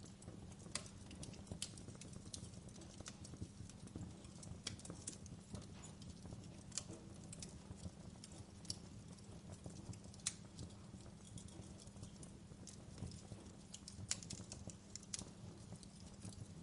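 Wood fire crackling in a fireplace: irregular sharp pops and snaps over a low, steady rumble of the burning fire.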